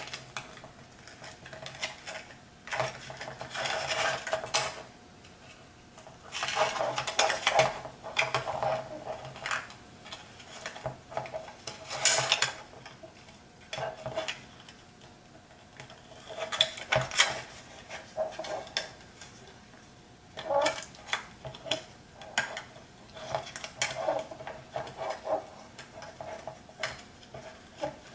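Hands handling and pressing a canopy onto a carbon-fibre FPV quadcopter frame: irregular bursts of rustling and rubbing with light clicks and taps, separated by brief quieter pauses.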